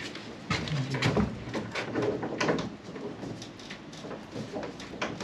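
Wooden battens and panelling being handled and fitted: an irregular run of knocks, clicks and scrapes, with a brief low murmur of a voice about half a second in.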